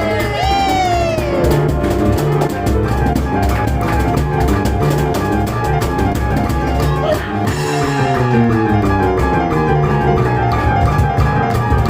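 Live instrumental music from a piano and cajon duo playing fast and hard, the percussion striking densely and evenly throughout. A little past the middle, rapid runs of notes cascade downward.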